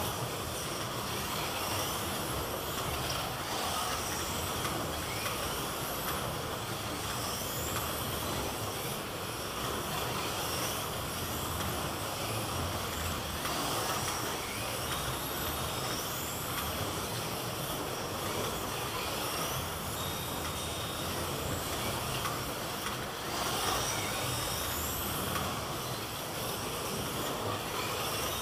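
Electric slot-car motors running as the cars lap a multi-lane track: repeated rising whines, one every second or two as cars accelerate, over a steady rushing noise.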